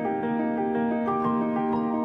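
Instrumental background music: a keyboard melody of held notes, one note changing to the next every fraction of a second.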